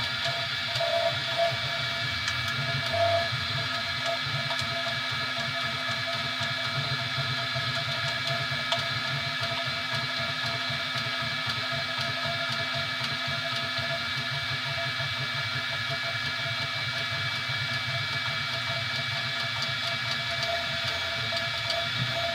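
3D printer running: a steady machine sound of several held whining tones over an even hum, with a few faint clicks.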